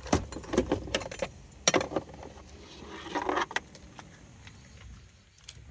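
A series of light metallic clinks and knocks from tools or metal parts being handled, most of them in the first two seconds, then a short rustle about three seconds in before it quietens.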